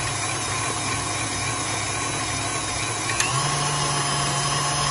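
KitchenAid Artisan stand mixer motor running steadily, beating batter in its steel bowl as an egg is added. There is a click a little over three seconds in, after which the hum is slightly louder.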